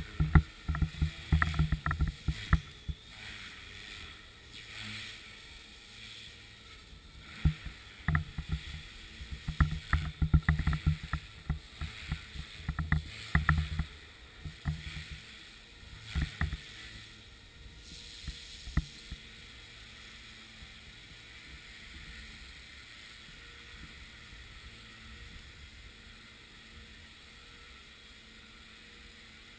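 Radio-controlled helicopter flying aerobatics, its rotor and motor giving a steady whir. Through the first half irregular loud gusty thumps hit the microphone, dying away at about 18 seconds to leave a quieter steady hum.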